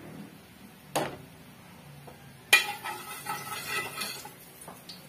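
A spatula knocking and scraping in an aluminium wok as garlic is stirred. There is a click about a second in, then a sharp metallic clang about two and a half seconds in, followed by a second or so of ringing scraping clatter.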